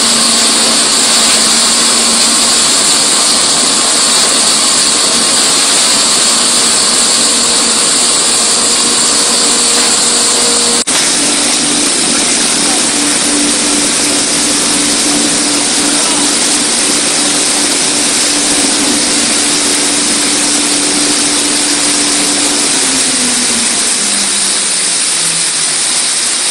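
LHWS-1000 sawdust hammer crusher running with its discharge fans and cyclones: a loud steady hiss of blown air and milled wood over a steady motor hum. Near the end the hum drops in pitch over a couple of seconds.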